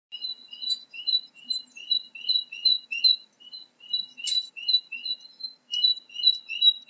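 A bird chirping in a quick, even series of short, high paired notes, about three a second.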